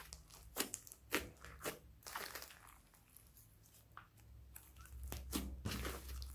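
Hands squishing, folding and stretching pink slime mixed with foam beads. The slime gives off irregular sticky crackles and pops.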